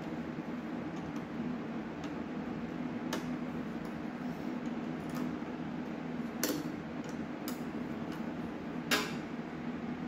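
A handful of separate, sharp metal clicks as a wrench works a nut on the engine, over a steady low hum.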